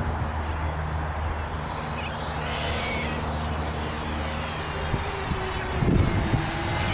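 Walkera F210 racing quadcopter flying overhead, its propellers buzzing steadily, with a swell of higher whine as it passes about two to three seconds in. Wind buffets the microphone near the end.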